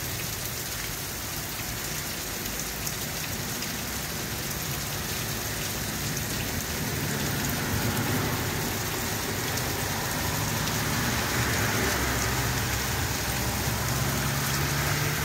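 Heavy rain pouring steadily onto a flooded road, grass and pavement, a dense hiss that grows a little louder through the second half. Near the end a car drives through the standing water, adding a low rumble of engine and tyres.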